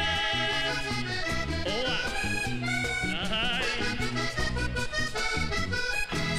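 Vallenato band playing an instrumental passage: a diatonic button accordion carries the melody over bass guitar and percussion.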